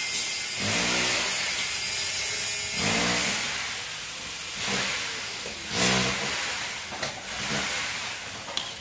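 Pumpkin tips stir-frying in a hot wok over a gas flame: a steady sizzling hiss, with water splashed into the pan about four seconds in.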